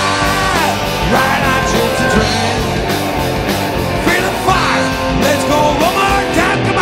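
Live rock band playing: electric guitars, bass, drums and organ-style keyboard, with a lead line bending up and down in pitch over the steady beat.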